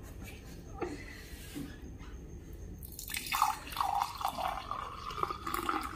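Cola poured from a plastic bottle into a drinking glass. The pour starts about three seconds in and runs as a steady rush of liquid.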